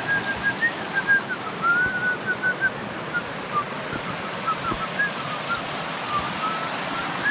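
Steady rushing of a rocky creek's flowing water. Over it come short, high whistled chirps, repeated all through, that sound like a bird.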